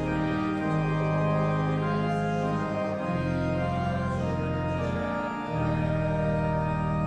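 Church organ playing slow, sustained full chords over a deep bass line, the chord changing every two seconds or so.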